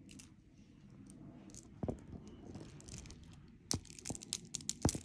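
Glass bead necklace being handled: beads clicking against each other with a soft rustle, one sharp click about two seconds in and a quick run of clicks near the end.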